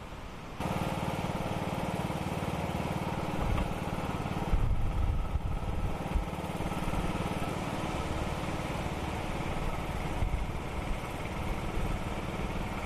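Riding lawn mower's small engine running steadily at an even pitch as it drives through floodwater, setting in about half a second in.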